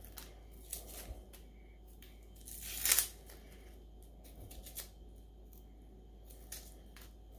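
Dry, papery onion skin crackling and tearing as it is peeled off a whole onion by hand, in scattered small crackles with one louder click about three seconds in.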